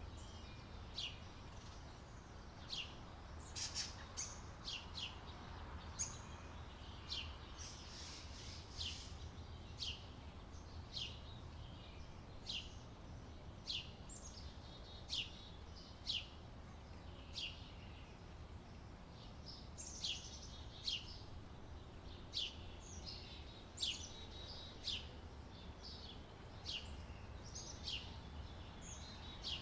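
Small birds chirping in an outdoor ambience: short, quick falling chirps, roughly one a second, some in closely spaced pairs, over a steady low background rumble.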